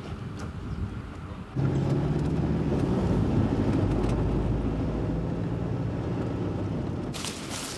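Steady engine and road drone heard inside a moving van, with a low hum, starting suddenly about one and a half seconds in after a quieter outdoor stretch. Near the end it cuts to crackling footsteps in dry brush.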